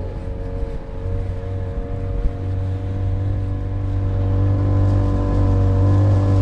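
Motorboat engine running steadily, growing louder about halfway through.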